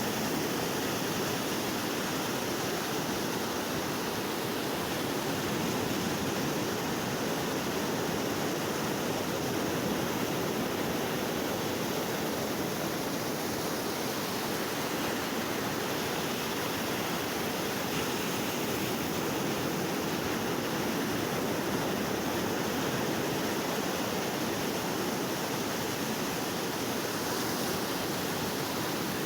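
Sea surf washing in a continuous, steady rush of noise with little rise and fall.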